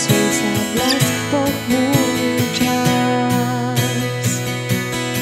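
Acoustic guitar strummed in a steady rhythm, moving from a C#m7 chord to Bsus4. A wavering melody line sounds over it in the first half.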